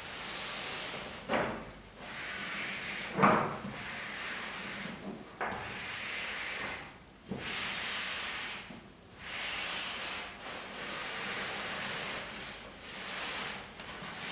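Pleated woven fabric set with metal plates being slid, gathered and spread by hand across a tabletop: long swishing rubs come and go, broken by several sharp knocks, the loudest about three seconds in.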